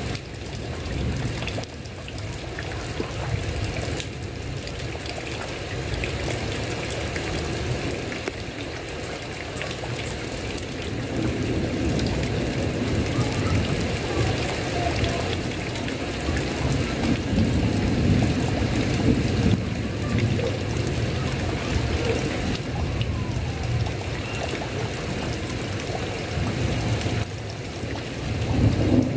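Heavy rain falling steadily on a tile roof, with a low rumble underneath that swells through the middle.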